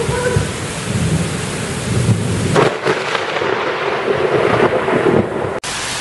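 Thunderstorm: heavy rain hissing steadily under low rumbling thunder, with one sharp crack of thunder about two and a half seconds in. Near the end the sound cuts abruptly to steady rain.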